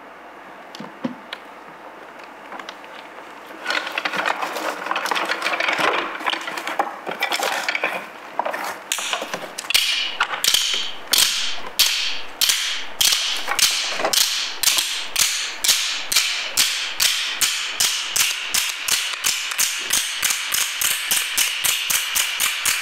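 Quiet for the first few seconds, then a dense clatter, then from about nine seconds in a run of sharp, even ticks that speeds up to several a second, like a mechanism ticking.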